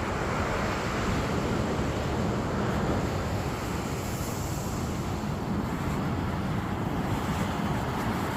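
Steady rush of sea surf, mixed with wind buffeting the microphone.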